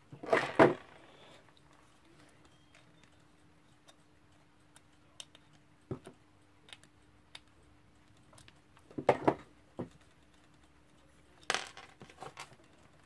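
Small metal parts of a Westclox Baby Ben Style 7 alarm clock movement being handled and taken apart with fingers and pliers: scattered light clicks, with short clattery bursts just after the start, about nine seconds in and near the end. A faint steady hum runs underneath.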